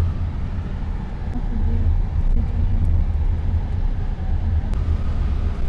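Car driving on the road, heard from inside the cabin: a steady low engine and road rumble.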